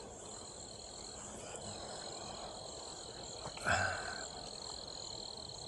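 Crickets chirping in a steady, continuous high-pitched chorus. A short, louder sound cuts in briefly about two-thirds of the way through.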